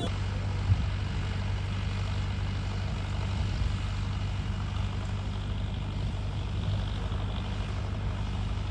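Engine running steadily at an even, low hum, with one short knock near the start.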